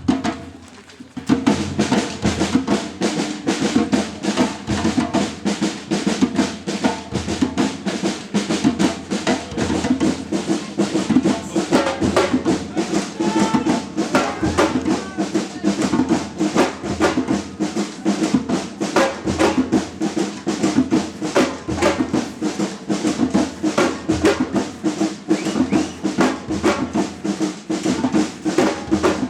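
Batucada samba percussion band playing: snare drums over bass drums in a fast, steady rhythm, coming in loud about a second in after a brief lull.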